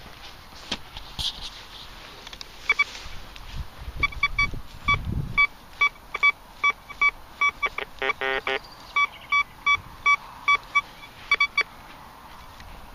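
Thracian metal detector giving short, repeated beeps as its coil passes over a heap of dug soil, with a lower, buzzier tone about eight seconds in. The beeps signal a metal target in the spoil.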